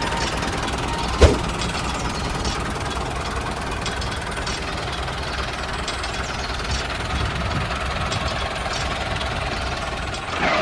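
Small engine running steadily, with a single sharp knock about a second in.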